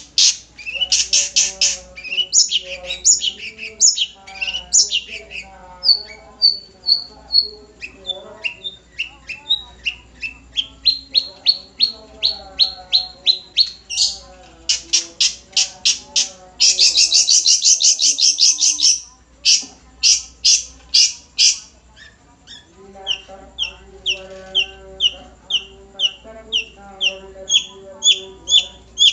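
Long-tailed shrike singing a varied, loud song of harsh chirps and runs of quick repeated notes. It breaks into a dense fast trill for about two seconds past the middle, then settles into evenly spaced paired notes.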